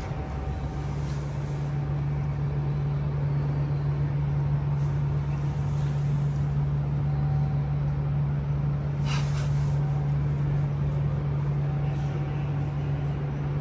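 A steady low mechanical drone starts about a second in and holds, over the general noise of a large station hall, with a brief sharp clatter about nine seconds in.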